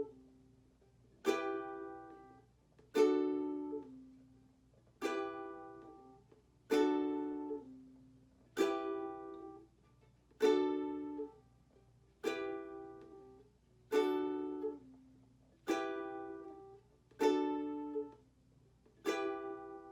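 Ukulele strummed one chord at a time, about once every two seconds, each chord left to ring and fade. It is a slow practice of the change back and forth between D and E minor chords.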